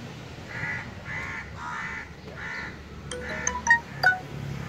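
A crow cawing five times in quick succession, about two calls a second. Near the end come a few sharp clinks, each with a brief ringing note; these are the loudest sounds.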